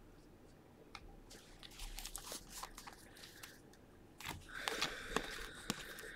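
Stiff baseball cards being flicked and slid one by one through a handheld stack, giving faint scattered clicks and light rustling. About four seconds in the clicks come faster and a faint steady high tone sounds with them for about two seconds.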